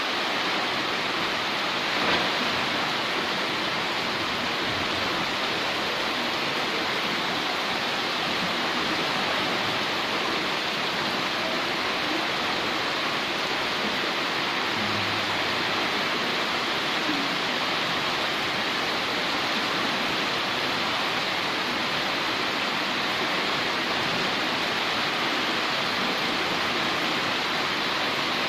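Floodwater rushing down a street: a steady, unbroken rush of fast-flowing water.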